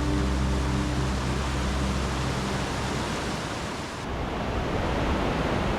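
Rushing water of a mountain stream, a steady noise with no distinct events. Background music fades out over the first couple of seconds.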